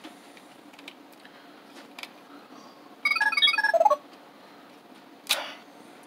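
Beast-X Morpher toy giving a quick run of electronic beeps, falling in pitch and lasting about a second, as it reads the inserted Ranger key. Before it come a few light plastic clicks from the key and toy being handled.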